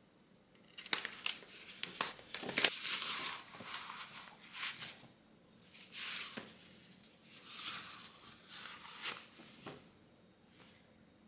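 Crinkling and rustling of something being handled, in several short spells with a few sharp clicks, busiest in the first few seconds.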